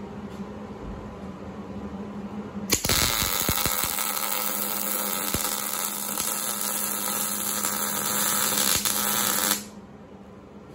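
Wire-feed welder arc crackling and sizzling steadily for about seven seconds, starting suddenly about three seconds in and cutting off abruptly, over a steady low hum.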